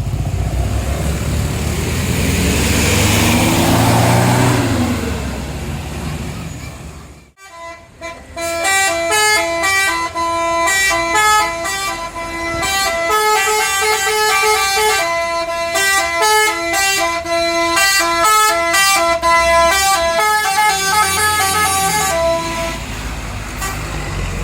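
A large vehicle's engine passes, its pitch rising then falling. After a brief drop-out about seven seconds in, a tour bus's Basuri telolet horn plays a tune for about fourteen seconds: quick stepped notes, several tones sounding at once. Engine noise returns near the end.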